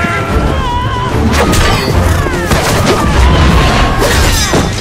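Dense film battle soundtrack: music with heavy booming low hits, fighters yelling, and several sharp impacts of clashing weapons.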